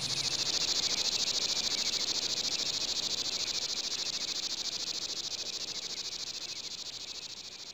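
Dense chorus of insects: a steady, high-pitched buzzing with a fast, even pulse that fades away near the end.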